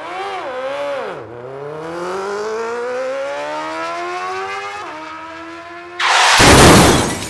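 Motorcycle engine sound effect revving, its pitch wavering at first and then climbing steadily for about four seconds before levelling off. About six seconds in, a loud crash sound effect cuts in over it as the toy bike goes down.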